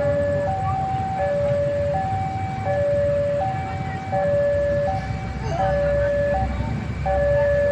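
Railway level-crossing alarm sounding a steady high-low two-tone ding-dong, the two notes alternating about every three-quarters of a second, over a low rumble.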